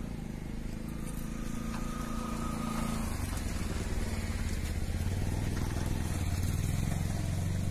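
An engine running steadily with a low throb.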